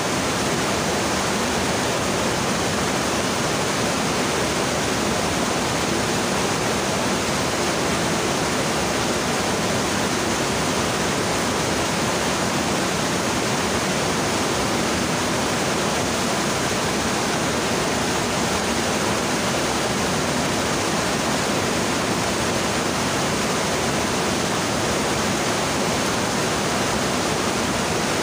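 Swift mountain stream rushing over and between boulders: a steady, even rush of water.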